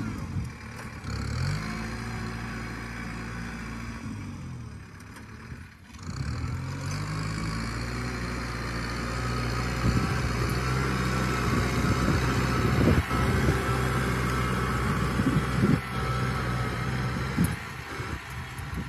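Kubota M-series tractor's diesel engine running under load while it pulls a disc plough through the soil. The engine note rises and falls in the first few seconds, then holds steadier, with clanks and knocks through the second half.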